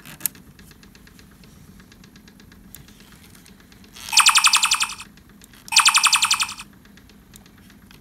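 Star Trek hand phaser universal remote's electronic firing effect on setting 2: two bursts of about a second each, each a rapidly pulsing buzz, with a third starting at the very end. Before them come a click and faint ticking as the setting dial is turned.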